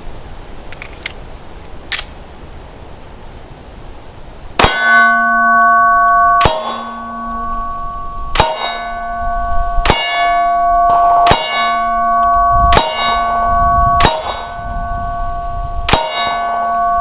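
CZ P10 C pistol firing eight shots, roughly one every one and a half seconds, starting about five seconds in. Each shot sets off a steady metallic ring on the same few pitches that hangs on until the next shot.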